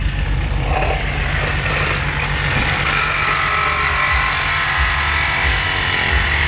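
Cordless reciprocating saw running steadily, with a high motor whine that grows stronger a few seconds in.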